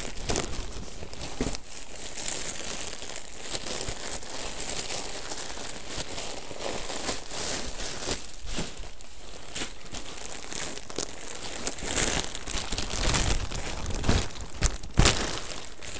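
Plastic packaging crinkling and crackling as it is handled and pulled off a roll of insulation fleece, with many sharp crackles that grow loudest near the end.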